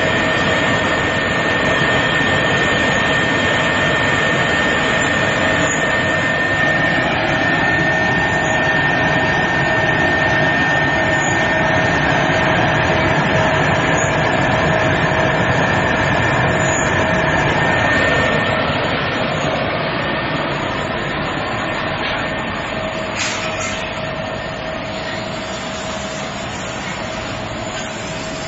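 Industrial date dicing machine running while it cuts dates into small cubes: a steady mechanical rush with a constant whine. A second, higher whine stops about two-thirds of the way through, and the sound gets a little quieter from there.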